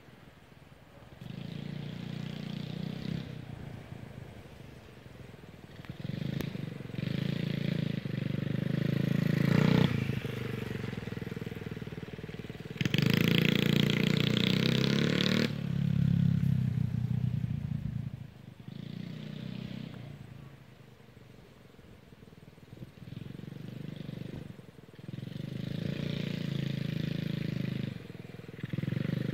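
Honda 50cc kids' motorbike engine running as it is ridden in laps, the engine note swelling and fading as the bike comes nearer and goes away and the throttle opens and closes. It is loudest about halfway through, when the bike passes closest.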